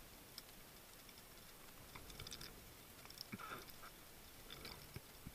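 Faint underwater clicking and crackling: scattered soft clicks with a few short crackly clusters, over near silence.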